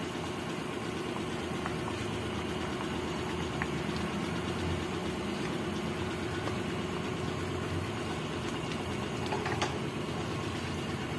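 Coconut-milk adobo sauce boiling in an open pan, a steady bubbling over a low hum, with a few light clicks of a plastic spatula against the pan as it is stirred.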